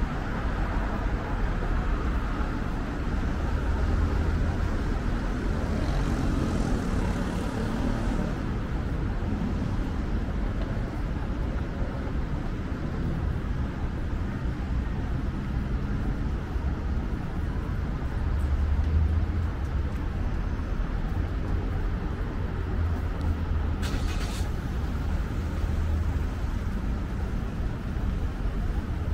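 Street traffic: a steady rumble of passing cars, with a short sharp hiss about three quarters of the way through.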